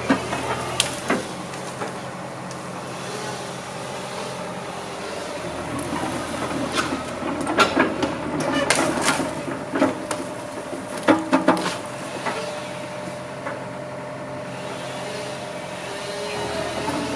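Crawler excavator's diesel engine running under hydraulic load as the boom and grapple work, getting louder about a third of the way in. A cluster of sharp knocks and cracks comes through the middle as the grapple takes hold of a log and lifts it.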